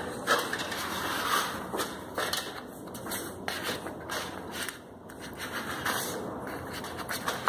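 Flat plastic (PVC) spatula scraping along a wall as it lifts water-soaked wallpaper, the paper peeling and tearing away in irregular scrapes and rustles, coming off together with its softened glue.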